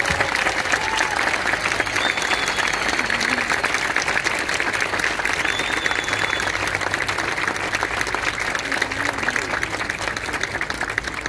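Audience applauding steadily, with a few faint voices calling out.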